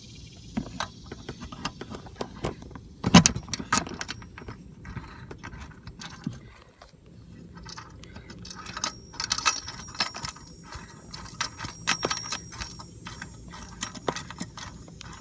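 Small metal hardware clinking and clicking as washers and a wing nut are fitted by hand onto a motorcycle saddlebag bolt. There is one louder knock about three seconds in and a run of quick metallic clicks and jingles in the second half.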